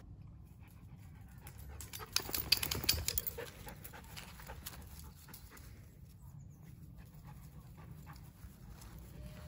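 Young husky panting as it trots on grass. About two seconds in there is a short, louder flurry of clicking and rustling.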